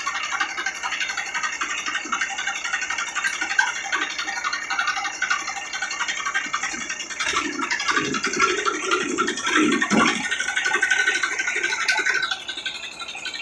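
TAFE 45 DI tractor's three-cylinder diesel engine running as the tractor drives slowly, a steady rattly clatter. It gets somewhat quieter near the end.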